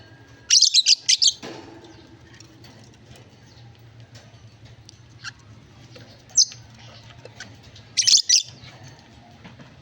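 Pet birds chirping in short, loud, high-pitched flurries: a cluster about half a second in, a single chirp past the middle, and another cluster near the end, with faint clicks and a low steady hum between.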